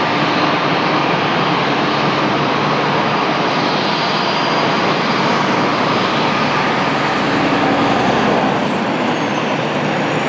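Airbus A320neo's jet engines running loud and steady: a broad rushing noise with a faint high whine.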